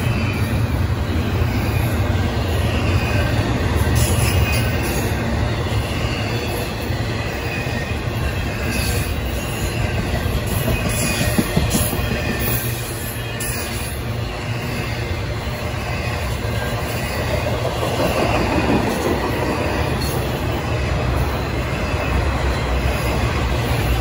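Intermodal freight train's well cars, loaded with double-stacked containers and truck trailers, rolling past: a steady low rumble of steel wheels on rail with faint high wheel squeal and occasional clicks over the rail joints.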